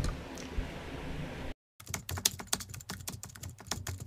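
A knock, then low room noise that cuts out about one and a half seconds in. A rapid run of typing clicks, like keys on a computer keyboard, follows for about two and a half seconds.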